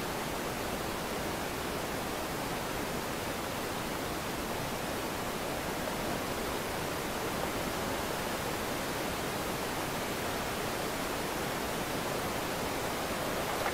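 Steady, even hiss-like noise with no distinct events.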